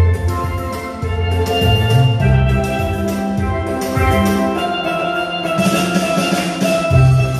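Steel pan playing a gospel melody, its notes ringing with a shimmer, over drums and changing low bass notes.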